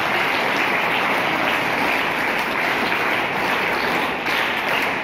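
A hall full of seated schoolchildren clapping steadily: applause at the end of a speech.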